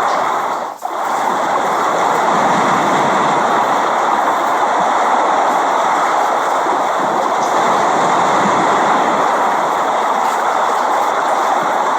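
Steady rain falling, an even hiss that dips briefly about a second in.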